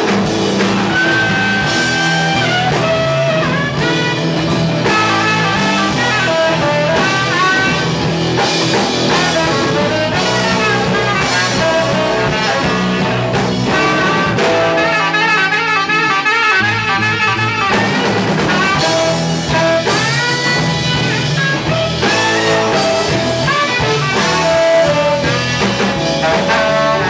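Live blues band playing an instrumental passage: tenor saxophone and harmonica lines over electric guitar, bass and drums.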